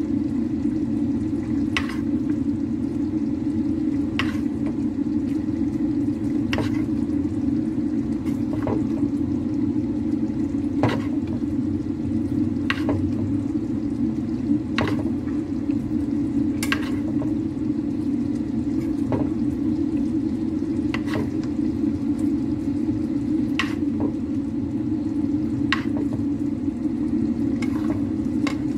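Spatula scooping curry sauce and pouring it over salmon fillets in a nonstick frying pan, knocking lightly against the pan about every two seconds, over a steady low rushing noise.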